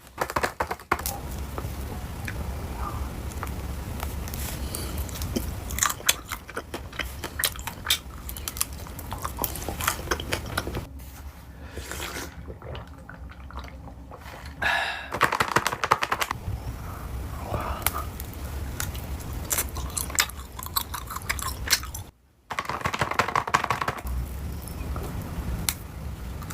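Someone eating: chewing and biting crunchy food, with irregular crunches and mouth noises. The sound cuts out briefly once, for about half a second, near the end.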